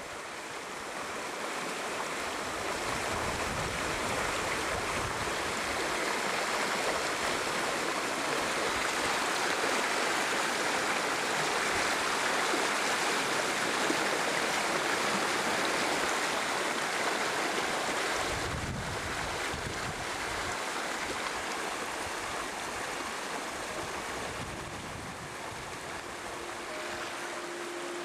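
Fast stream water rushing and bubbling over rocks, heard close at the water's surface. The steady rush swells in at the start and eases off near the end, with brief low rumbles about two-thirds of the way through, and soft music tones come in just before the end.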